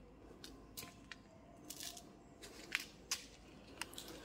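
Loose stock tail tidy (number-plate holder) of a Yamaha R15 being moved by hand, giving a few faint, irregular clicks and clacks. It has so much play that it rattles.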